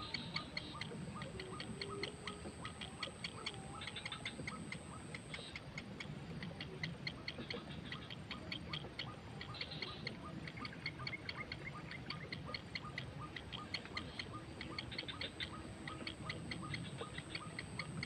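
Heron chicks begging at the nest: a rapid, even ticking call, several clicks a second, kept up without a break.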